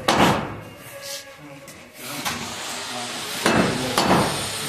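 Hammer striking the wooden window frame as it is fixed in the wall opening: a loud knock right at the start, then two more about three and a half and four seconds in. A steady hiss sets in about two seconds in.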